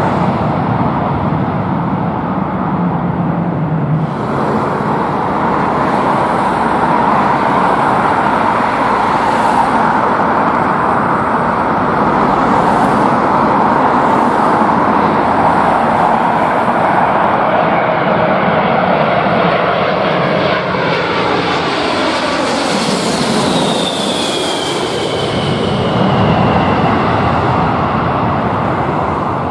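Jet airliner engines of a landing Boeing 747-436 heard close by: a loud, steady rush. Whines fall in pitch as it passes, about three quarters of the way through. A landing Boeing 777 is heard for the first few seconds.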